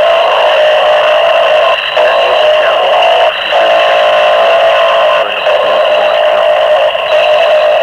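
Harsh noise music from a 1992 cassette demo made with microphones and homemade electronics: a loud, dense distorted drone with steady bands of pitch. It drops out briefly every second and a half to two seconds.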